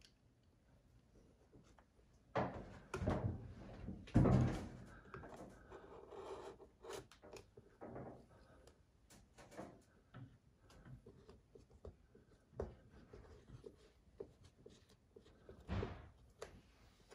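Wallpaper rustling, crinkling and scraping as a mural's edge is cut around a flower and peeled back by hand, with scattered small clicks. A few louder bumps come about two to five seconds in and again near the end.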